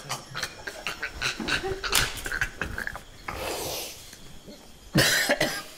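A man panting, gasping and spluttering with his tongue out after downing a foul-tasting shot of herring juice, with a louder burst about five seconds in.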